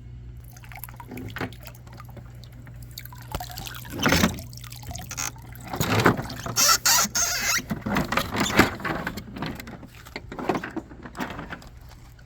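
Water pouring and dripping out of a cordless robotic pool cleaner, in irregular gushes and splashes, loudest about a third of the way in and again past the middle. A steady low hum runs underneath.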